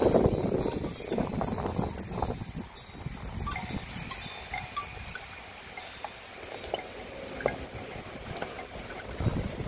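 Wind chimes ringing with scattered, irregular clinks, over a low rumble that is strongest at the start and again near the end.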